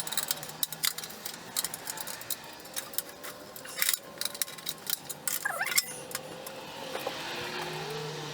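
Irregular metallic clicks and clinks of a screwdriver and small tools working screws out of the metal mechanism of a vintage gumball machine, with a short squeak a little past halfway.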